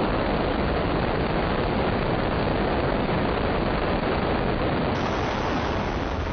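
Subscale solid rocket booster motor firing on a test stand: a loud, steady rushing noise of the exhaust.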